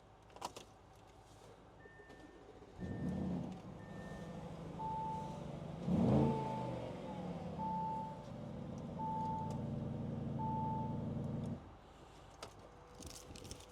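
Audi RS Q8's twin-turbo V8 cold start: it catches about three seconds in with a flare in revs, runs at a steady fast idle, and is switched off about eight seconds later. Car chimes sound during it, three short high tones before the start and then a row of five lower beeps.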